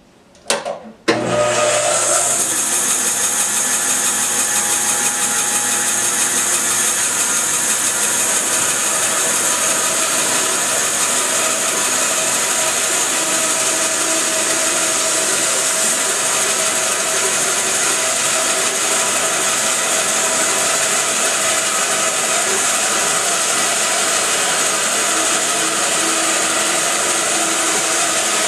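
Bandsaw switched on after a couple of clicks, coming up to speed about a second in and then running steadily with a strong high hiss.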